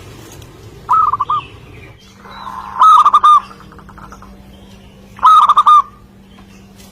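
Zebra dove (perkutut) cooing: three short phrases of quick staccato coos, about a second in, around three seconds and near five and a half seconds, the last two much louder.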